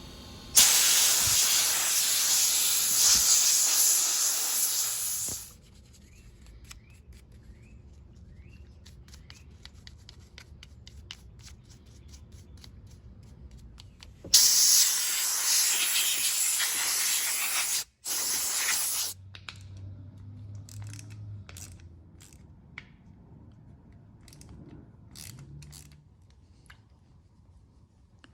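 Two long bursts of pressurized spray hissing, each about five seconds; the second cuts out briefly near its end. Between and after the bursts come light, scattered clicks and ticks.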